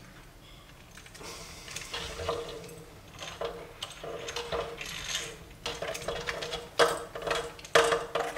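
Hand-cranked eggbeater drill turning in uneven spurts, its gears whirring and clicking as the bit opens up the holes in a speaker crossover's circuit board. It starts about a second in and grows louder, with sharp clicks near the end.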